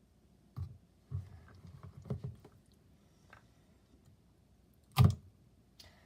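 Slime being handled: a few soft, scattered squishes and taps, then a single sharp knock about five seconds in, the loudest sound.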